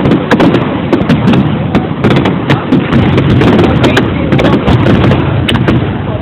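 Fireworks display going off: a dense run of sharp bangs, cracks and crackling pops in quick succession.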